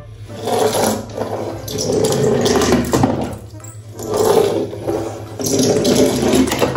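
Water rushing and splashing, swelling and fading in about four surges.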